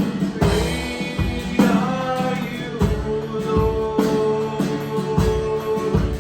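Live band playing a contemporary worship song: drum kit, guitar and singing, with a long held note through the second half.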